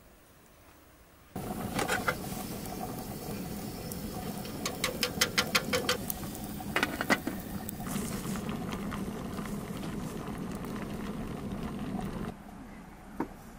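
Water boiling in a metal kettle over an open wood fire, a steady bubbling hiss with sharp pops and crackles, a quick run of them about five seconds in. It starts suddenly a second or so in and cuts off about twelve seconds in.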